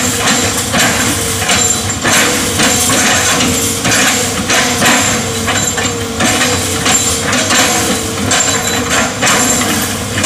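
Hitachi hydraulic excavator's diesel engine running under load, with irregular cracking and crunching knocks as its bucket chops up an oil palm trunk.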